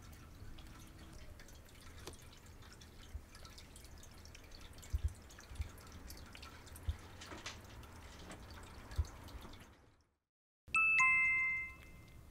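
Faint room tone with a few soft low thumps, then, after a moment of dead silence, a bright chime rings out as an edited sound effect and fades away over about a second and a half.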